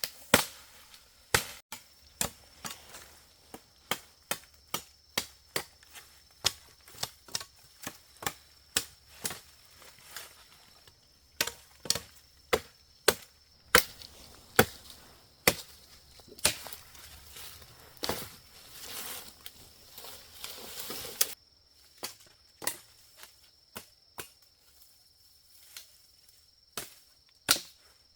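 Firewood being chopped by hand with a blade: a long run of sharp chops, about one to two a second. A few seconds after the middle comes a stretch of rustling and crackling, like branches being broken or dragged.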